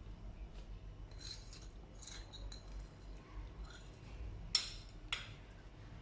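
A spoon scraping softly in a small dish, then two sharp clinks against it with a brief ring, about half a second apart near the end.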